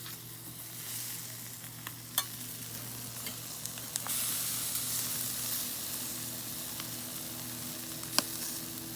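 Burgers and melting cheese sizzling on a hot charcoal grill, a steady hiss that grows louder about four seconds in, with a couple of sharp clicks. A faint low hum runs underneath.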